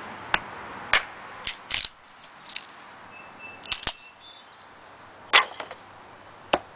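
Collins camp hatchet striking and splitting thin strips of dry pallet board into kindling on a wooden chopping block: a run of sharp wooden knocks and cracks at uneven intervals, the loudest about five seconds in.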